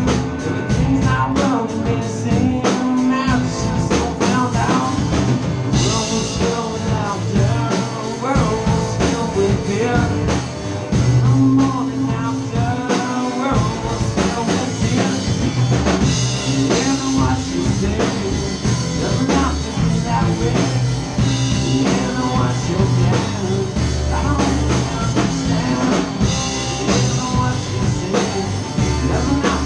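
Rock band playing live in a small room: electric guitars and drum kit, with a man singing over them. The cymbals come in harder about six seconds in.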